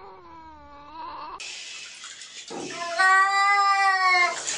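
A tuxedo cat's wavering meow ends about a second in. Then another cat gives a loud, drawn-out yowl lasting about a second and a half while it is being bathed, with water being poured in a bathtub behind it.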